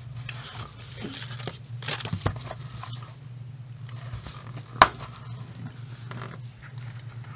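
Cardboard box sleeve scraping and rustling as a small plastic case is slid out of it, with a sharp click about five seconds in as the case's clear plastic lid snaps open.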